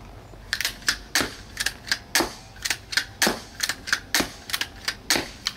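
Stinger Compact repeating pistol crossbow fired rapidly. A sharp snap comes about once a second, and lighter clacks between the snaps are the spring-loaded cocking rod being pushed back and returning.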